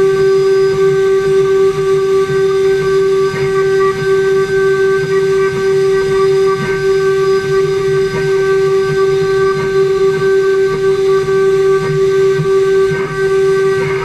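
CNC router spindle running with a steady, high whine while machining parts, with rougher cutting noise beneath it. The audio is sped up four times.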